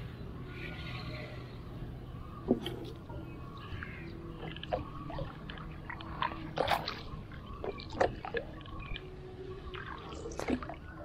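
Water sloshing and dripping around a small wooden canoe, with scattered sharp knocks and splashes, a few of them louder than the rest.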